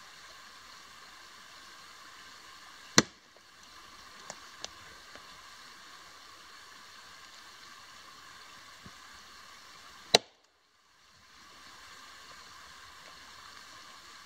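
A faint steady hiss, broken by two sharp, loud clicks about three seconds in and again about ten seconds in. After each click the background drops out briefly, and a few small ticks come in between.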